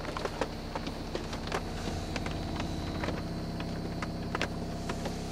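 Electric pump motor of the 1987 Lincoln Mark VII's electro-hydraulic ABS brake unit running steadily, heard from inside the cabin, building pressure in the brake accumulator. Rain taps lightly on the car at the same time.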